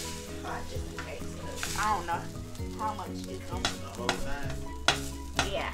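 Food sizzling in a pot on the stove while a utensil stirs it, scraping the pot in repeated short strokes. Background music plays underneath.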